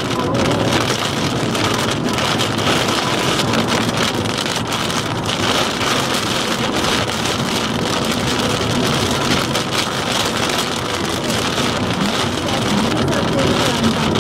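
Rain hitting the windshield and roof of a moving car, a steady dense patter, over road and tyre noise.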